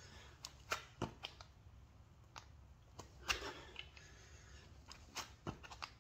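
Irregular sharp taps and soft thumps of hands and feet landing on an exercise mat during burpees, the loudest about three seconds in and a quick cluster near the end as he drops into a push-up.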